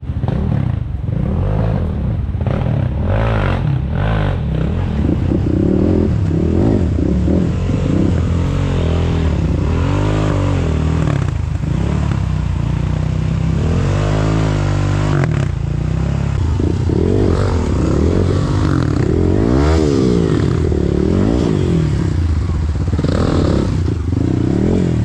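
A motor vehicle engine running and revving up and down several times, its pitch rising and falling again and again. A few sharp knocks come in the first few seconds.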